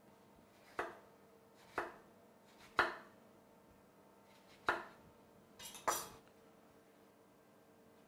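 Apple slices being cut and set one by one into a sugared metal tart tin: about half a dozen short, sharp knocks spaced roughly a second apart, the last two close together about six seconds in.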